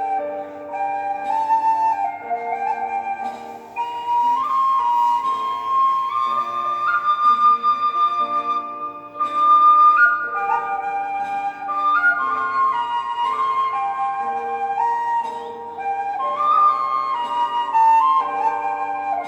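Thai khlui (bamboo flute) playing a slow, stepwise song melody over a lower held accompaniment.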